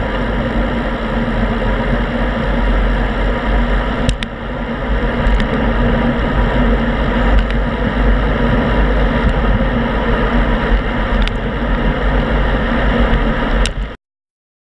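Wind buffeting the microphone of a handlebar-mounted GoPro on a bicycle riding along at speed, a steady deep rumble with road and tyre noise, broken by a few sharp clicks from bumps. It cuts off suddenly near the end.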